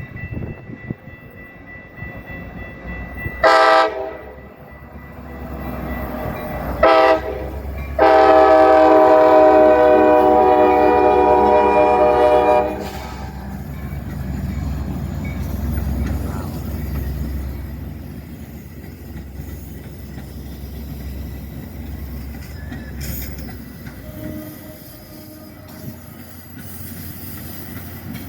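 Locomotive horn sounding two short blasts and then one long blast of about four and a half seconds, over the steady low rumble of a passing train.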